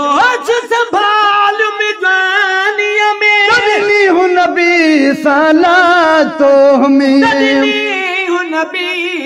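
Two men singing a Sindhi naat in long, drawn-out notes that waver and glide, with no clear words.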